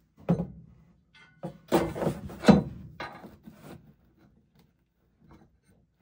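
Steel inverter mounting bracket knocking and clanking against the wall and the half-set screws as it is hung on them: a run of about six sharp knocks over roughly three seconds, the loudest about two and a half seconds in.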